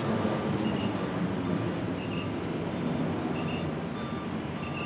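Jet engine noise from a Boeing 737-800's CFM56 turbofans as the airliner climbs away after takeoff: a steady low rumble that slowly fades.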